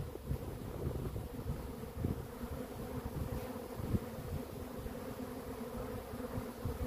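Honeybee swarm buzzing, a steady hum of many bees, with wind rumbling on the microphone.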